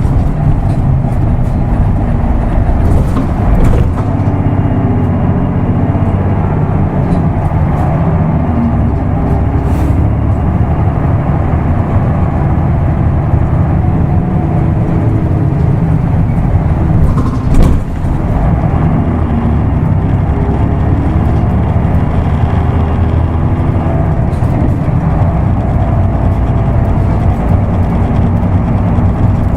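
Isuzu Erga Mio bus's diesel engine running under way, its pitch rising and falling as the bus accelerates and the manual gearbox is shifted. There is a brief sharp hiss or click about 17 seconds in.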